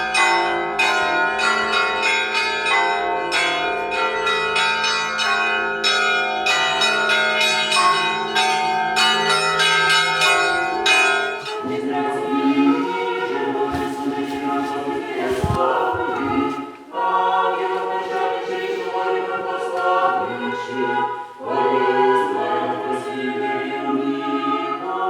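Russian Orthodox church bells ringing in a quick run of strikes for about the first half, then giving way to choral singing in held notes.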